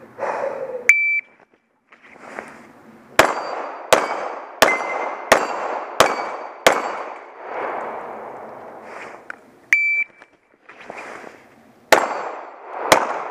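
Electronic shot-timer start beep about a second in, then semi-automatic pistol shots: six evenly spaced about two-thirds of a second apart, several followed by the ring of steel targets being hit. After a pause there is another short ring, then two more shots near the end.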